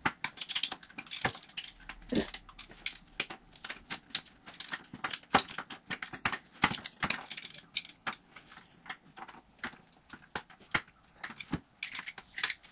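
Irregular metallic clinks and taps of steel gear-train parts and hand tools inside an open tractor transmission case as the countershaft is worked into place.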